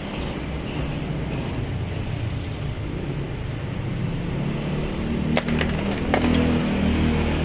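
Several sharp metallic clinks of hand tools, about five and a half to six seconds in, over a steady low mechanical hum.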